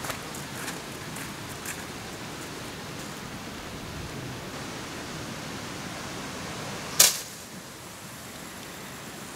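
A single sharp whoosh about seven seconds in as a long carp rod is swung through an overhead cast, over a steady outdoor hiss, with a few faint steps or clicks at the start.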